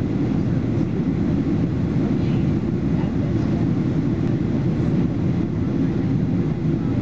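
Steady cabin noise of a Boeing 767 in flight, heard from a window seat inside the cabin: a constant low rumble of the jet engines and airflow over the fuselage.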